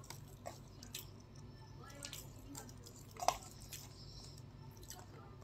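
Faint scattered clicks and scrapes of an eating utensil in an aluminium foil tray of rice, with quiet chewing, and one sharper click a little past three seconds in.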